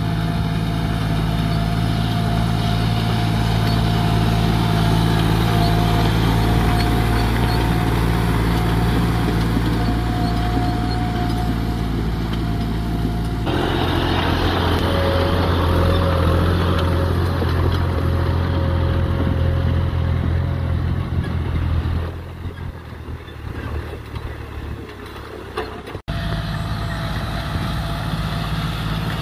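John Deere tractor's diesel engine running steadily under load while pulling a rear rotary tiller through dry soil. The sound shifts abruptly about 13 seconds in, drops quieter around 22 seconds, and comes back up near 26 seconds.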